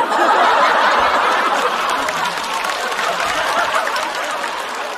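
Studio audience laughing at a punchline: a loud burst that dies away slowly.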